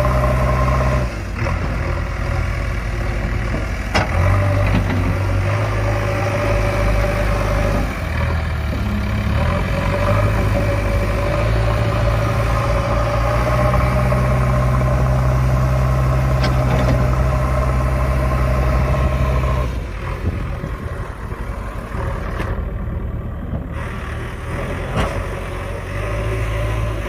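JCB backhoe loader's diesel engine running under changing load as it digs, its low hum shifting in pitch every few seconds. There is a sharp knock about four seconds in, and the engine goes quieter for the last several seconds.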